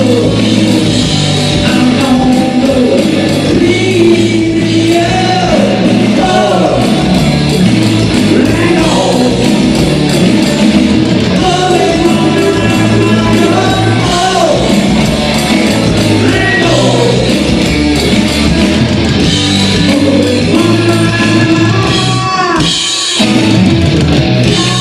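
Live rock band playing loud: electric bass, electric guitar and a Roland electronic drum kit, with a male voice singing over it. The low end drops out for a moment near the end before the band comes back in.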